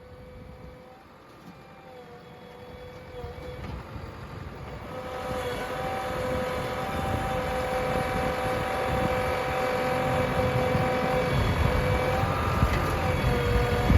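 Heavy diesel engine running with a steady whine over its rumble, growing steadily louder and loudest near the end.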